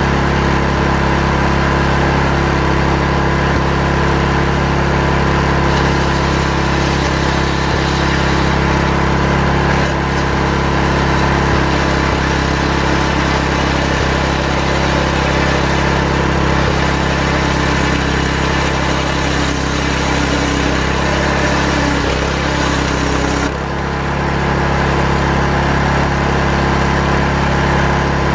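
Chainsaw engine running steadily under load while ripping a log lengthwise into timbers, its level dipping briefly near the end.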